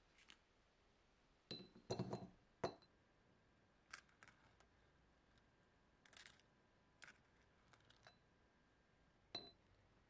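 Small metal lighter parts being fished out of a glass jar with pliers: a quick cluster of faint clinks of metal on glass about two seconds in, then scattered single light clicks and taps, and one more ringing clink near the end.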